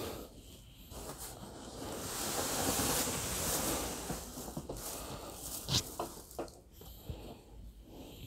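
Soft rustling of objects being handled and pulled out of a cardboard box, swelling for a few seconds and then giving way to a few light clicks and taps.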